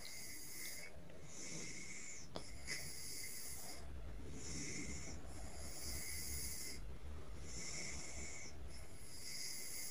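A spoon stirring chicken breast pieces through thick masala paste in a nonstick pan: a faint scraping swish repeats about every second and a half, with one small click between two and three seconds in.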